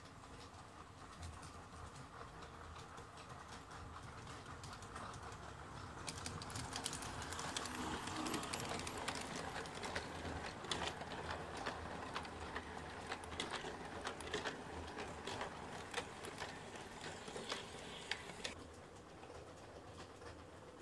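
LGB garden-scale model train with passenger coaches rolling past close by, its metal wheels clicking over the rail joints. It grows louder over the first few seconds, keeps up a run of sharp clicks while the coaches pass, and drops back suddenly near the end.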